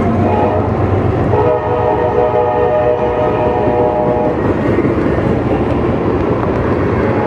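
Diesel locomotive horn sounding a long chord blast at a grade crossing over the rumble of the passing train. The horn stops about four seconds in, and the engine and wheel rumble carries on.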